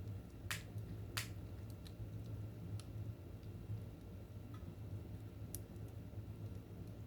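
Wood fire burning in a fireplace: sharp crackles and pops, two loud ones about half a second apart near the start and another near the end, over a steady low rumble.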